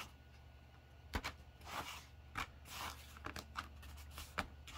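Laser-cut wooden tray pieces being handled and slotted together on a cutting mat: several light clicks and knocks with soft scraping in between.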